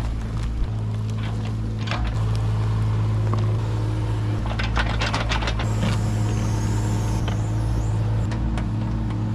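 A steady motor hum, with scattered short knocks and scrapes, a cluster of them about halfway through.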